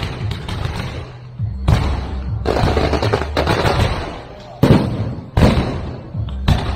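Aerial fireworks bursting overhead: about six sharp bangs, the loudest near the middle, each followed by crackling as the shells break into comets and glittering stars. A steady low rumble runs underneath.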